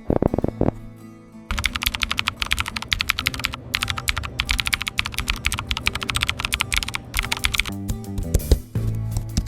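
Fast typing on a computer keyboard: a dense run of key clicks starting about a second and a half in and stopping near the end, over background music.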